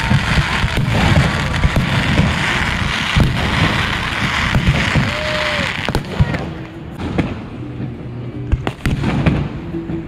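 Consumer fireworks going off. For the first six seconds there is dense crackling from many small bursts at once. After that come separate sharp bangs and pops.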